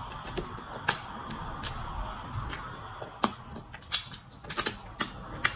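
Close-up eating sounds from a mouth: wet lip smacks and sucking clicks as soup is licked off the fingers. They come as a run of sharp clicks, closer together near the end.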